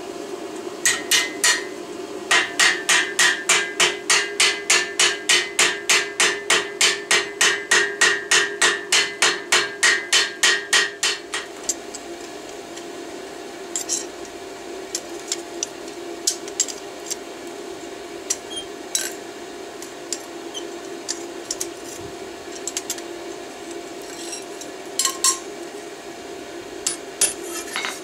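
Hand hammer striking the red-hot end of a forged railroad-spike bracket held in a steel bench vise: a fast, even run of ringing blows, about three a second, for some ten seconds. After that come scattered lighter metal clinks and taps, with a few more strikes near the end, over a steady hum.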